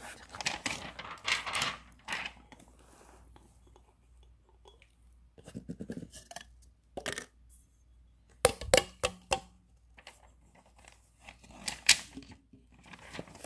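Close handling noises: rustling and scraping, then a quick cluster of sharp clicks and knocks about two-thirds through, and another sharp click near the end.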